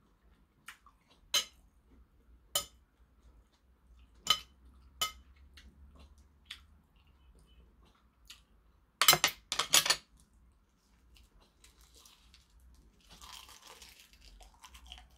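Metal chopsticks clicking against a porcelain bowl and food: a few single sharp clinks, then a quick loud rattle of clicks about nine seconds in. Near the end there is a soft breathy noise.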